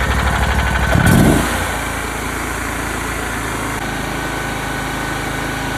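Engine running steadily, with a short louder surge about a second in before it settles back to an even run.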